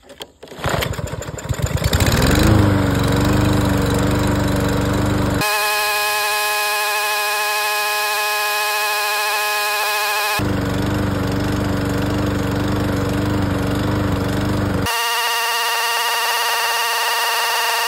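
Single-cylinder Briggs & Stratton lawn mower engine, its crankcase filled with vegetable cooking oil instead of motor oil, being started: a few cranking strokes, then it catches about two seconds in, revs up and settles to a steady run. In two stretches the recording is sped up, so the running engine sounds much higher-pitched.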